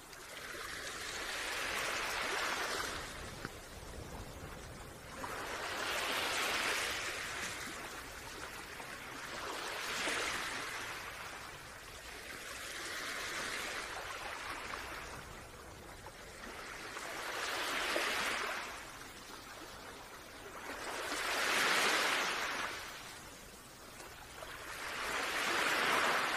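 Rushing water noise that swells and fades about every four seconds, six or seven times: small waves washing in and draining back.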